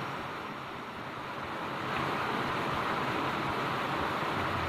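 Water pouring over a small concrete weir into a stream: a steady, even rush, a little softer for the first two seconds.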